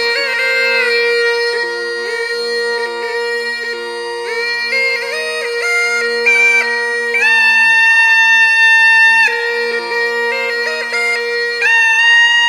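Murli, the Rajasthani gourd pipe, playing a melody in raga Bhairavi over its own steady drone, in stepping notes with a long held note about seven seconds in and another near the end.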